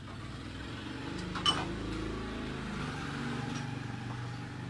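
Steady low motor hum, with a single sharp click about a second and a half in.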